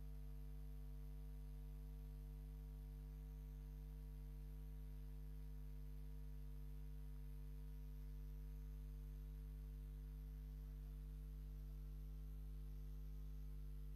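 Steady low electrical hum, a mains buzz made of several fixed tones, with nothing else heard.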